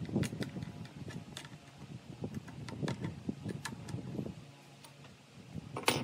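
Metal wrench working the nut and bolt on a wooden steering-column joint: irregular clicks and small metal-on-wood taps, with one louder knock just before the end.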